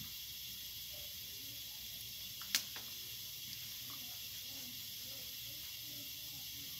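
One sharp plastic click from a Bianyo marker's cap being pulled off, about two and a half seconds in, over a steady hiss.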